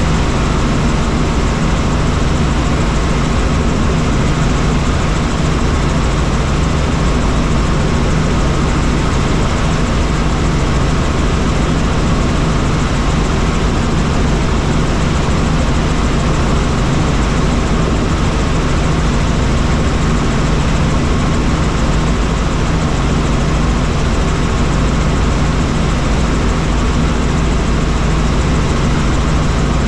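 Helicopter engine and rotor running steadily in flight: a constant loud drone with a low hum underneath.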